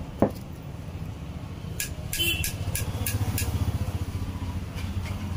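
New replacement crankshaft for a Bajaj NS200 turned by hand, its bearing giving a low, rapidly pulsing rumble, with a brief sharp falling squeak just after the start and a few light clicks in the middle. It is the sound of the new crank, demonstrated against the worn original.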